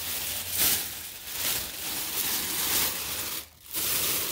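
Thin paper of a sky lantern rustling and crinkling as it is handled and fluffed open, with a short pause about three and a half seconds in.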